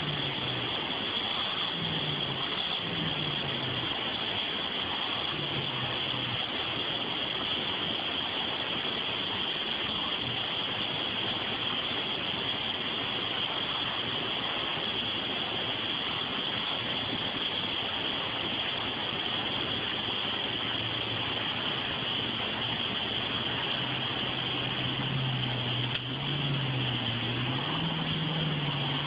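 Military truck's engine working under load as it fords a fast river, with the rush of water throughout; the engine note rises and falls in the last few seconds.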